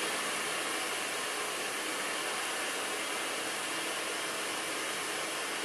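Handheld hair dryer running steadily, a constant airy hiss aimed at curly hair.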